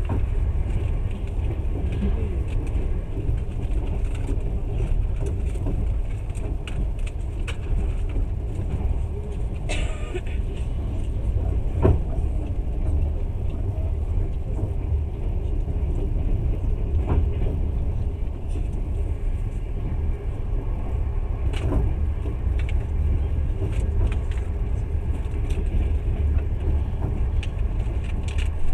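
Passenger train running, heard from inside the carriage: a steady low rumble of wheels on rails, with a few sharp clacks and a brief high-pitched noise about ten seconds in.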